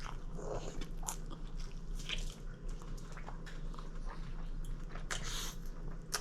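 A person biting and chewing crunchy food close to the microphone, with irregular crisp crackles between wetter chewing sounds, over a faint steady low hum.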